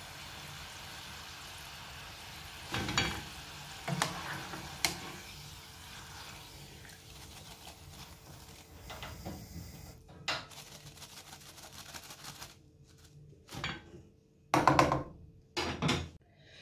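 Hot oil sizzling in a saucepan of frying chips, with the metal wire mesh strainer knocking and scraping against the pan as the chips are lifted out. There are sharp knocks at about three, four and five seconds, and the loudest clatter comes near the end.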